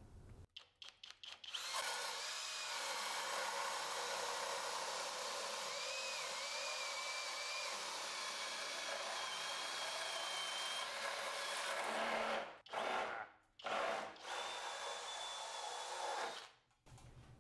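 Flex 24 V cordless drill boring a long spade bit into wood. It starts with a few quick trigger blips, runs steadily for about ten seconds with a motor whine whose pitch dips and recovers under load, then finishes with several shorter bursts.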